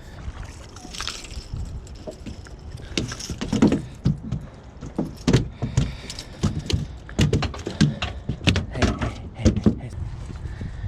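Irregular knocks, thumps and rattles of a just-caught bass and fishing tackle being handled.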